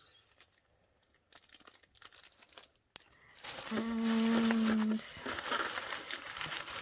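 Packaging crinkling and rustling as an item is handled and opened, starting about three and a half seconds in, with a drawn-out hummed "aaand" held on one pitch for about a second over it.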